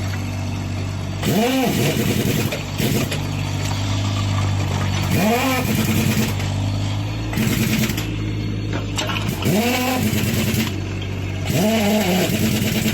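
Kubota mini excavator's diesel engine running steadily while it works. Four times, a whine of about a second rises and falls as the hydraulics take load.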